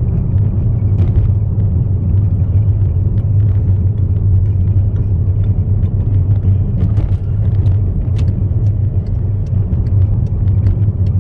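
Steady low rumble of a vehicle's engine and road noise heard from inside the cabin while driving, with a few faint ticks here and there.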